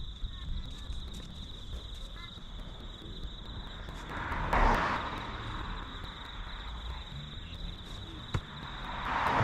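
A steady, high insect chorus drones throughout, with two swells of rustling noise about four and nine seconds in.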